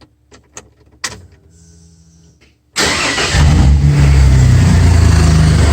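A few light clicks, then about three seconds in the 1995 Ford F-150's 4.9L inline-six starts and settles into a steady idle. It now fires because a new ignition control module has cured the no-spark fault.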